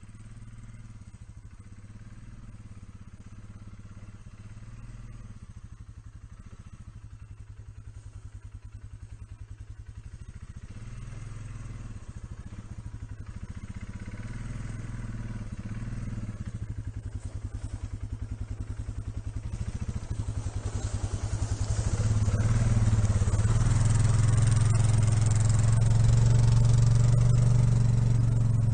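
A 4x4 ATV's engine running as the quad approaches towing a loaded log trailer, growing steadily louder and loudest as it passes close near the end.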